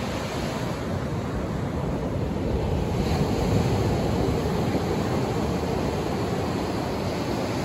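Sea surf washing onto the beach: a steady rush of waves that swells about three seconds in.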